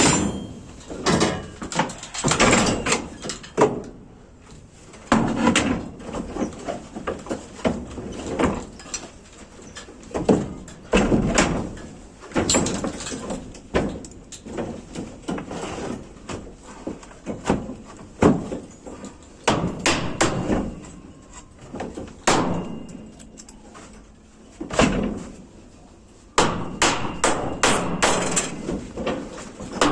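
Irregular hammer blows and knocks on wood, some in quick runs with short gaps between.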